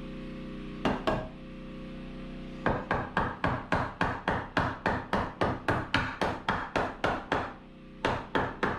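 Hammer striking wood framing: two blows about a second in, then a fast, even run of about twenty blows at roughly four a second, and three more near the end.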